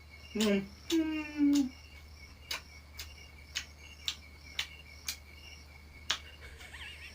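Crickets chirping steadily, with sharp clicks repeating about twice a second and a short voice near the start.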